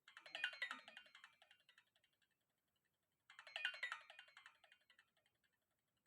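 Nokia 1265 mobile phone ringtone from the phone's speaker: a short melody of quick, high beeping notes, played twice with a short gap between.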